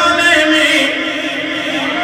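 A man's voice chanting in a sung, drawn-out style, holding long steady notes, with a pitch that glides up and back down near the end.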